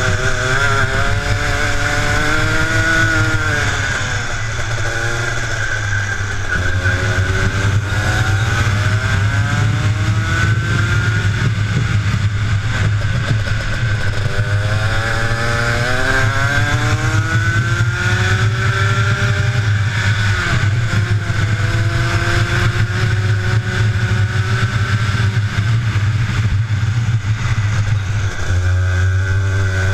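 Rotax two-stroke kart engine heard onboard at racing speed, its revs climbing along the straights and dropping back for each corner, several times over. A low steady rumble runs underneath.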